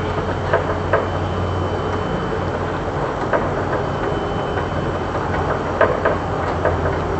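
Steady low hum of the stove and kitchen, with a few soft clicks and taps as whole small fish are laid by hand into a clay pot of curry, two of them close together near the end.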